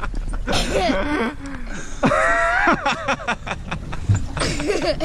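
A man laughing and calling out in short bursts, loudest about two seconds in, over a steady low rumble of wind and boat noise.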